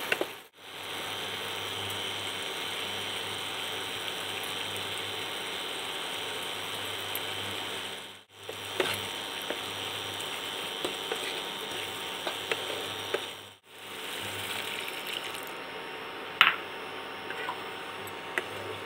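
Chana dal cooking in a non-stick pan with a steady sizzle as a wooden spoon stirs and scrapes through it, with occasional sharp knocks of the spoon against the pan. The sound drops out briefly twice.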